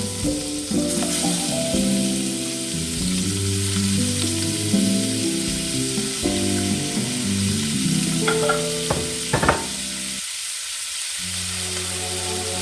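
Food sizzling as it fries in a pan, a steady hiss under background music with a simple melody. A few sharp clicks of a utensil come about eight to nine and a half seconds in.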